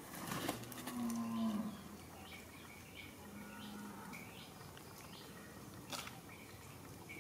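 A low, drawn-out animal call, like cattle lowing, about a second in, and a shorter, fainter one near the middle, over faint high chirps that repeat every half second or so.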